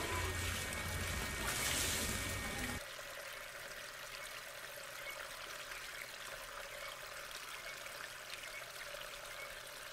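Water running steadily from a bamboo spout and splashing into a plastic tub. It is louder for the first few seconds, then drops to a quieter, even trickle.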